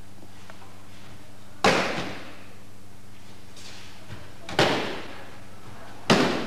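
Aikido breakfalls: the thrown partner hits the mat three times, each a sharp slap-thud that rings briefly in the hall.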